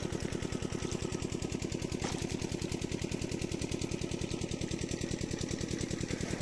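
Small engine running steadily with a fast, even beat, about ten beats a second.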